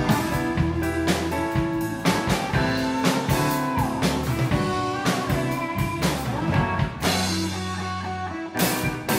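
Live band playing a song: drum kit, electric bass, electric guitar and keyboards together.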